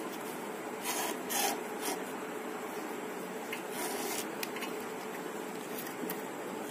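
Rubber V-belt being worked by hand onto a wet grinder's pulleys, the motor off: a few short rubbing scrapes of belt on pulley and frame over a steady low hiss. The new belt is too tight to seat.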